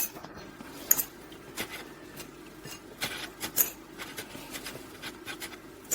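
Scattered light clicks, taps and rustling of hands handling kitchenware and food, with a faint steady background hum.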